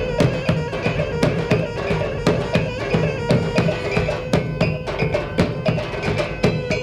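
Traditional Minangkabau music for the Tari Galombang dance: busy, driving drumming with a steady pitched melody line held over it.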